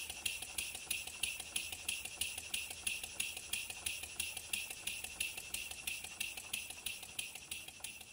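PM Research model steam engine running on compressed air: a rapid, even exhaust beat of about five ticks a second over a steady hiss, fading out near the end.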